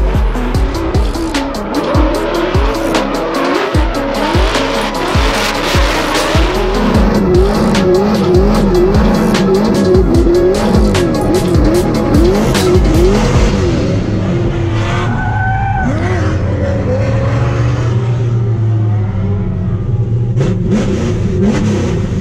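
Drift car engine revving hard with its pitch swinging up and down, tyres squealing, under music with a steady beat. The music drops away a little over halfway through, leaving the engine running at a steadier pitch.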